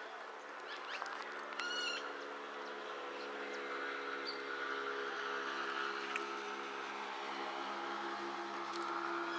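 Steady low hum of a distant engine running at an even speed, growing a little louder toward the end, with a short bird call about two seconds in.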